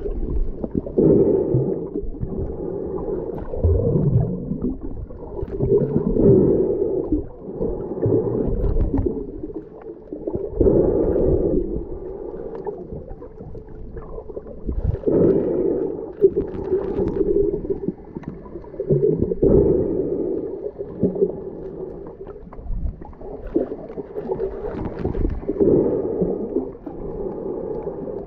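Muffled underwater sound from a camera held below the surface while snorkeling: water sloshing and gurgling, swelling and fading every few seconds.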